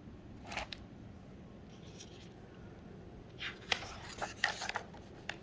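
Paper pages of a picture book rustling as a page is turned: a short rustle about half a second in, then a longer run of crisp rustles and small taps about three and a half seconds in.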